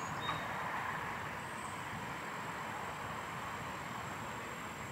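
Steady outdoor background ambience: an even hiss with a faint high steady whine above it, and no distinct events.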